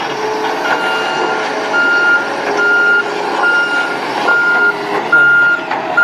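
JCB telescopic handler reversing: its back-up alarm gives a steady high beep a little more than once a second over the running diesel engine.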